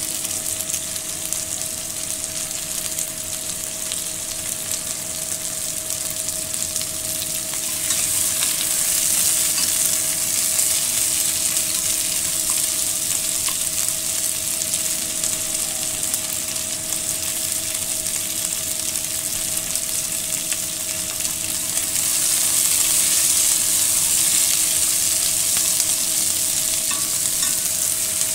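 Chopped bell peppers, onion and tomato sizzling as they are stir-fried in a pot. The sizzle grows louder about eight seconds in and again about two-thirds of the way through, with a steady faint hum underneath.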